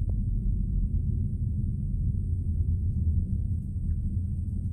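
Distant rumble of a SpaceX Falcon 9 rocket's nine first-stage Merlin engines during ascent, arriving across the water as a steady, rough, fluctuating low rumble.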